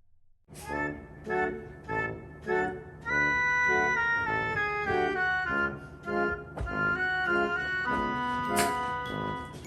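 Background music: an organ and keyboard tune with rhythmic chords, starting about half a second in.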